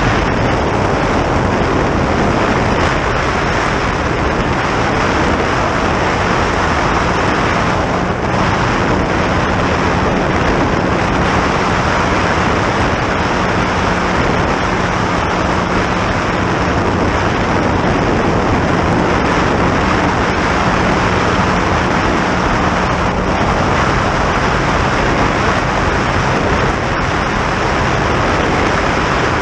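Motorboat running at high speed: a loud, steady rush of wind and water over a low, even engine hum.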